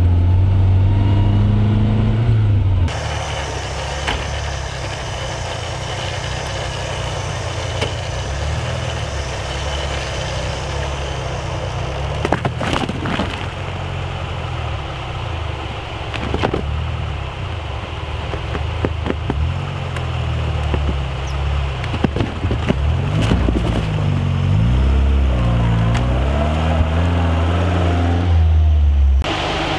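Off-road vehicle engine running while driving, rising and falling in pitch as the throttle is worked, with a few sharp knocks from the vehicle going over rough ground. The sound changes abruptly about three seconds in and again near the end.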